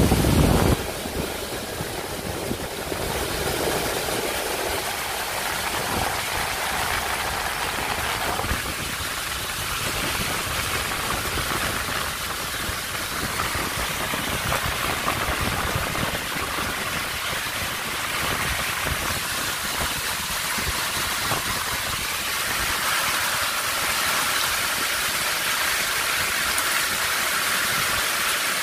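Heavy rain mixed with hail pouring down onto a street and rooftops: a steady, dense rushing hiss, briefly louder in the first second.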